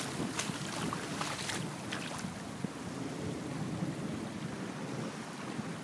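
Floodwater running across a driveway, a steady rushing wash, with wind buffeting the microphone. A few sharp ticks in the first two seconds.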